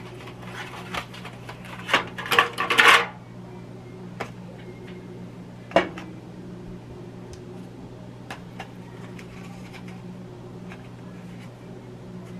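Disposable aluminium foil pie tin crinkling and rattling for about three seconds as a raw pie crust is peeled out of it. This is followed by a single sharp tap a little before the middle and a few faint ticks of foil being handled, over a steady low hum.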